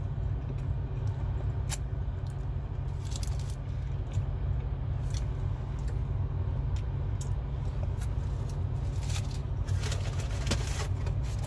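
Steady low rumble of an idling truck engine heard inside the cab, with scattered light clicks and rustles that come more often near the end.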